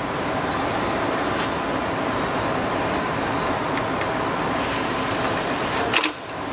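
Steady mechanical hum in the background. About five seconds in, a cordless drill whirs briefly as it drives a fender bolt, and a sharp click follows near the end.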